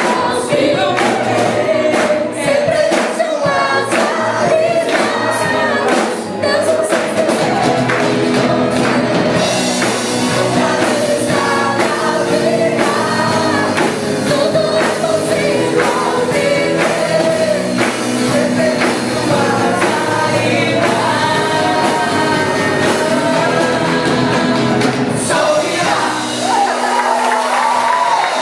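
Youth gospel choir singing together, accompanied by a drum kit and electric guitar, with sharp drum or clap strikes densest in the first several seconds.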